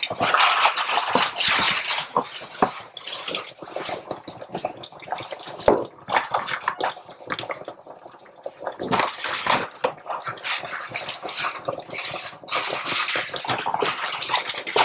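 A utensil clinking against a cooking pot amid irregular wet splashes and drips as food is handled in liquid in the pot.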